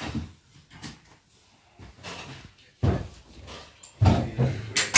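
Several irregular knocks and thumps of objects being handled and set down, the loudest a cluster about four seconds in.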